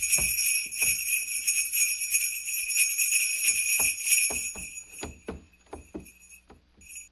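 Sleigh bells jingling steadily over a series of soft thuds of footsteps on a roof. The thuds come faster about four seconds in, then the bells and steps fade out; a last brief jingle comes near the end.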